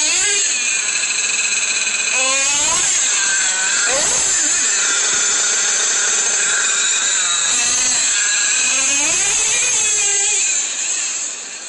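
Small nitro engine of a Traxxas Revo radio-controlled monster truck running at high revs. Its pitch rises and falls again and again as the throttle is worked. It gets quieter about ten and a half seconds in as the truck moves away.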